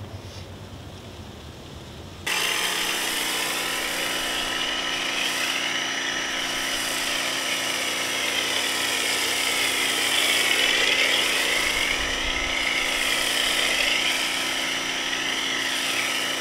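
Stanley electric pressure washer kicking on suddenly about two seconds in and running steadily, spraying snow foam through a foam cannon: a constant motor-and-pump whine over the hiss of the spray.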